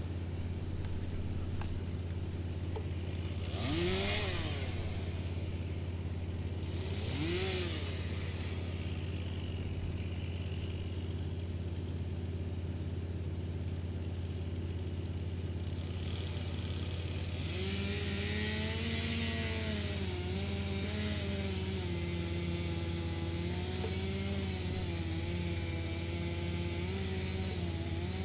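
Wood chipper's engine running steadily, sweeping up and down in pitch twice in the first eight seconds. From about halfway a rough chipping clatter comes in and the engine's pitch wavers as it takes the load of the wood being fed.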